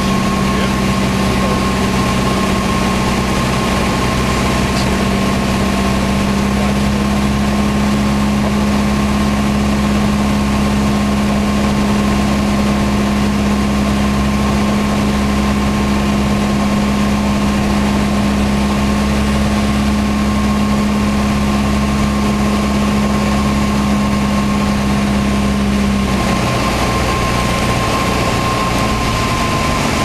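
Cabin drone of a Piper Turbo Arrow's turbocharged piston engine and propeller on final approach, holding a steady pitch. About four seconds before the end the drone drops and changes as the power is taken off over the runway threshold.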